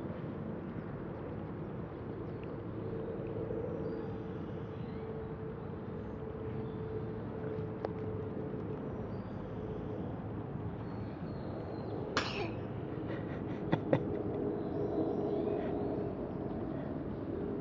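A single sharp sneeze about twelve seconds in, over a steady low rumble. Two sharp clicks follow about a second and a half later, the loudest sounds.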